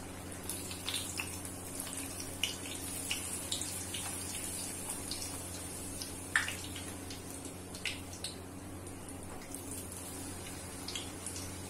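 A puri deep-frying in hot refined oil: a steady sizzle of bubbling oil with scattered small pops and crackles, one sharper pop a little past halfway. A low steady hum runs underneath.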